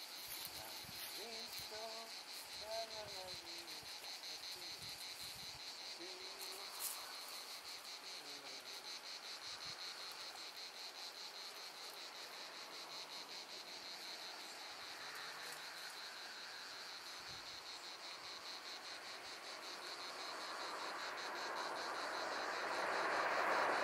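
A steady chorus of crickets chirping, a high even pulsing trill. A rushing noise swells louder over the last few seconds.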